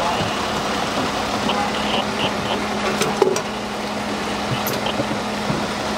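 Steady street noise with an idling vehicle engine and a constant low hum, broken by a couple of sharp clicks about three seconds in.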